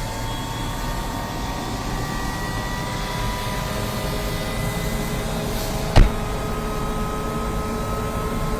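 Helicopter engine running steadily: a low rumble with several whining tones that creep slightly upward. There is one sharp click about six seconds in.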